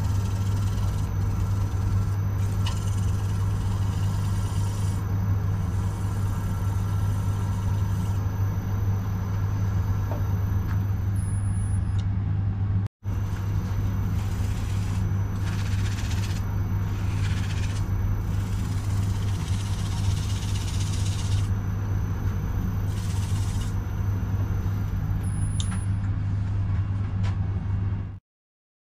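Wood lathe motor running steadily with a low hum as the bowl spins, with a hiss that comes and goes as a rag is rubbed on the turning bowl to apply finish. The sound drops out for a moment about halfway through and stops abruptly just before the end.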